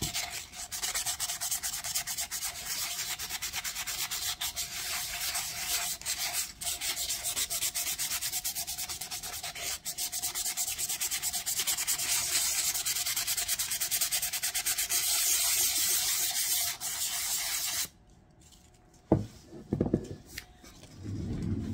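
Sandpaper rubbed rapidly back and forth over a bare stainless steel tumbler, scuffing the metal as prep-sanding before coating. The sanding stops about eighteen seconds in, and two short knocks follow near the end.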